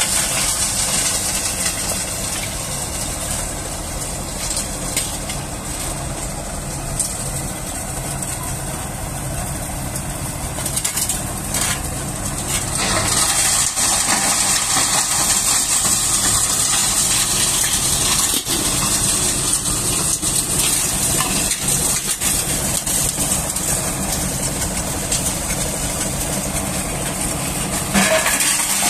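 Tractor-driven coal crusher running, the tractor engine's steady hum under a constant hissing clatter of coal being crushed. It grows louder about halfway through, with a brief surge near the end as a basket of coal is tipped into the hopper.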